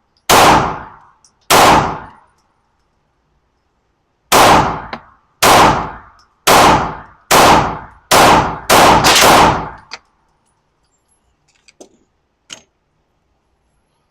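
Nine shots from a Smith & Wesson M&P 2.0 pistol, each with a short ringing decay. Two come about a second apart, then after a pause seven more come at about one a second, speeding up to about two a second at the end. A few faint clicks follow.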